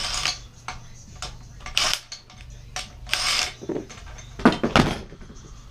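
Metal tools and engine parts being handled on a small engine during teardown: light clicks and several short scraping rattles, then two sharp metal knocks near the end.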